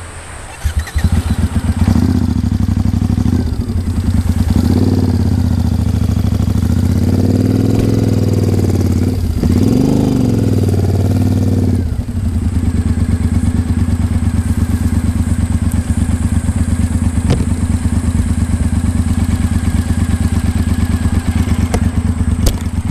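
Triumph Speedmaster cruiser's parallel-twin engine starting about a second in, then revving up and down as the bike is ridden over a rough dirt track. Near the middle it settles into a steady low run.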